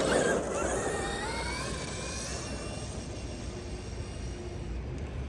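Traxxas XRT radio-controlled truck on a 6S LiPo pulling away at full throttle: a burst of tyre and motor noise, then the electric motor and drivetrain whine rising in pitch as it speeds up. The whine then holds and slowly fades as the truck gets farther away.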